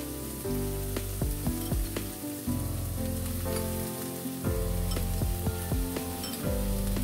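Instrumental background music with a steady beat over the sizzle of green beans and red bell pepper stir-frying in oil in a pan.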